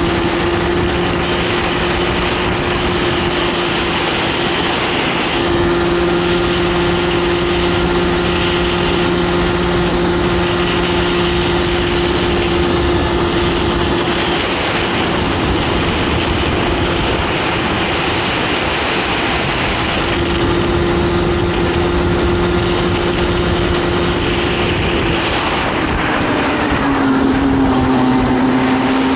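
Comer 50cc two-stroke kart engine at high revs, heard from the kart itself over a loud rush of wind and tyre noise. Its note holds nearly steady, fading back briefly a few times, and a second, lower engine note joins near the end.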